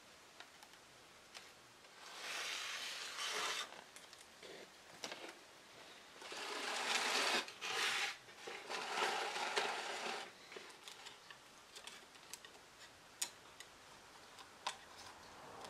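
Scraping and rubbing in three stretches as loose old wooden frame pieces and a paper-backed board are slid and handled on a paper-covered workbench, followed by scattered light ticks.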